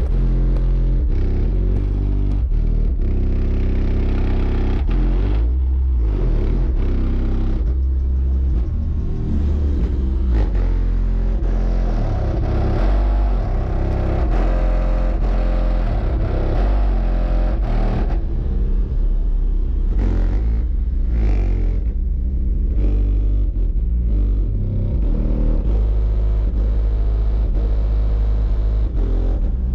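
Three Sundown U 18-inch subwoofers playing deep bass music at high volume, heard from outside the SUV. The bass sits in low notes that shift in steps.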